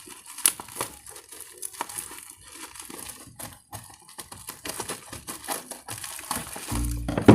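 Parcel packaging crinkling and crackling in quick irregular bursts as it is handled and unwrapped.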